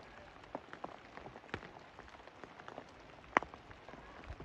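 Rain pattering on leaf litter and ground: a soft steady hiss with irregular drops ticking, one tick louder than the rest about three and a half seconds in.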